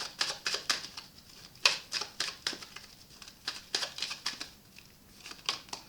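Tarot cards being handled, shuffled and drawn: a run of short, crisp card flicks and snaps at irregular spacing, the loudest about a second and a half in.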